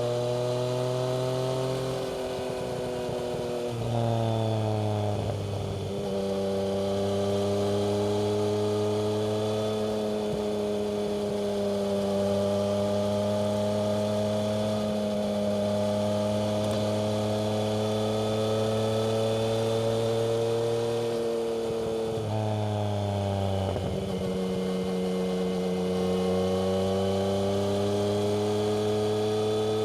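Yamaha MT-09's three-cylinder engine running through a Black Widow aftermarket exhaust while the bike is ridden. The engine note holds steady for most of the time, and twice, about two seconds in and again around twenty-two seconds in, the pitch drops and then picks up again.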